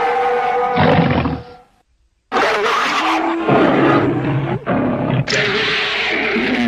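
Spliced creature sound effects of animal roars and growls, cut abruptly from one clip to the next, with a brief silent gap about two seconds in.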